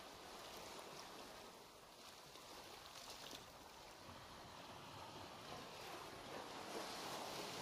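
Faint, steady rush of water, swelling slightly near the end.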